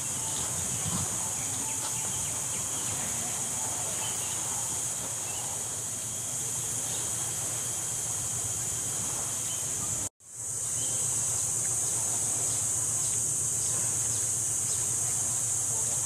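A steady, high-pitched drone of insects in the trees. It cuts out for a moment about ten seconds in, then carries on.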